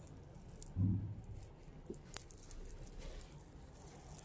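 Faint handling of an embroidered net dupatta: the fabric rustling and its hanging pearl and bead tassels clicking lightly, with a low thump about a second in and a sharp click a little after two seconds.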